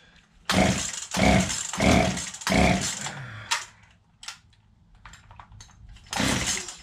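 A two-stroke gas chainsaw being pull-started: four quick pulls on the recoil starter cord, each a rasping stroke as the engine cranks over without catching, a few clicks, then another pull near the end. The saw is choked and does not start.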